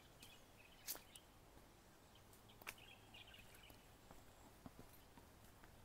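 Near silence: faint rural outdoor ambience with a few faint bird chirps and two soft clicks, about a second in and near the middle.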